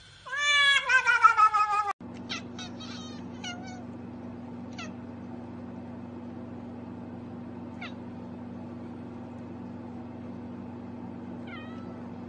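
A restrained domestic cat gives one long, loud meow that slides down in pitch and ends abruptly about two seconds in. A steady low hum follows, with a few short high chirps.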